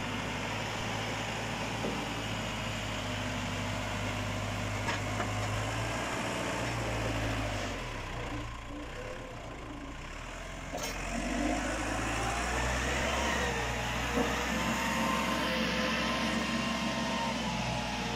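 Fermec 860 backhoe loader's turbo diesel engine running under varying load as the machine drives and works its loaded front bucket. The engine eases off about eight seconds in, picks up again about three seconds later, and a wavering whine rides over it through the second half.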